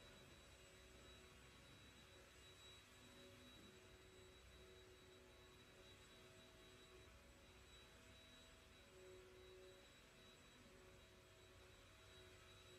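Near silence, with a faint steady high whine and a few faint low tones that come and go.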